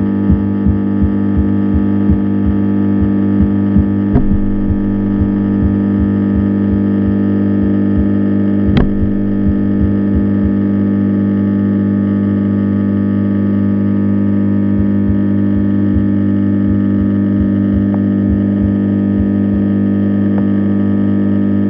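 Steady low machine-like hum made of several even tones, heard through an underwater camera. Soft low thumps come about three times a second through the first several seconds, then thin out, with a single sharp click about nine seconds in.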